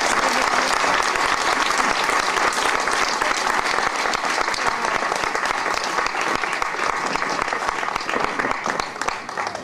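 Audience applauding, many hands clapping steadily, thinning out near the end.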